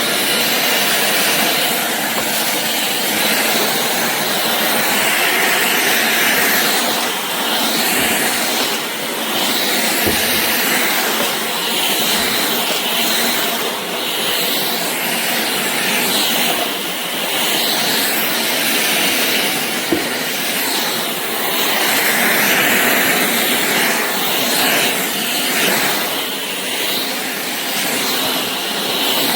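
Shark cordless stick vacuum running, a loud steady rushing noise that rises and dips slightly in level.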